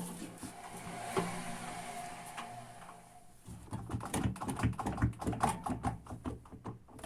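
A knock, then a small motor humming steadily for about three seconds, then quick irregular clicking and rattling of a machine.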